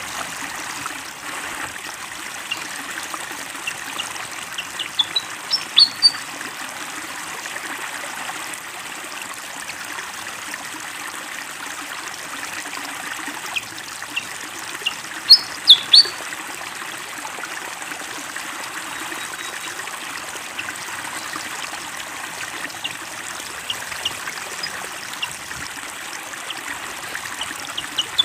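Water running and trickling steadily, with a pied fantail singing two short bursts of quick, high chirps, about five seconds in and again around fifteen seconds, and a few single chirps later.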